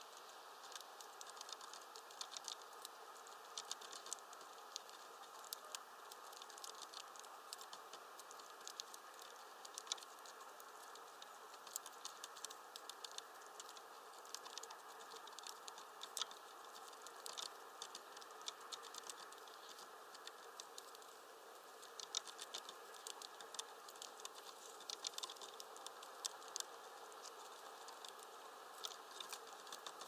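Faint, irregular light ticking and clicking, several ticks a second over a steady hiss: a grey-headed woodpecker's bill tapping at a suet ball in its spiral wire holder.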